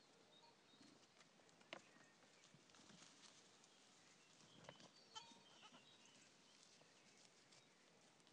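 Near silence, with a few faint light clicks and taps, the most distinct about two seconds in and about five seconds in.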